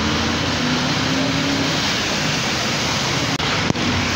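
Steady engine hum and road noise of a moving vehicle, heard from inside, driving in the rain. There is a short knock about three and a half seconds in.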